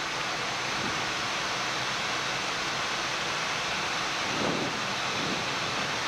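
Steady rushing hiss of airflow and engine noise inside a Boeing 787-9 flight deck on final approach.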